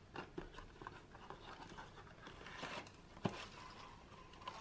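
Faint rustling and crinkling of a small cardboard box and its shredded paper filler being opened and handled, with one sharp tap a little after three seconds in.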